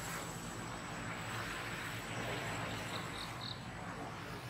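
Steady outdoor background hiss with a faint, constant high whine, and three short high chirps close together about three seconds in.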